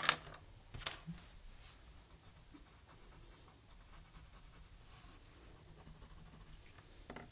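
Colored pencil scratching faintly across drawing paper as it shades, with a short sharp tap about a second in.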